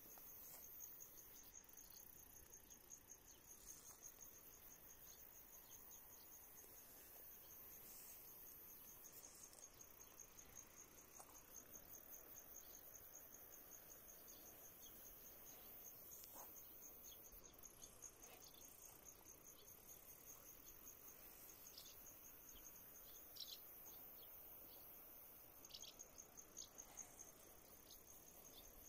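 Faint, steady high-pitched trilling of crickets, with a few soft ticks scattered through it.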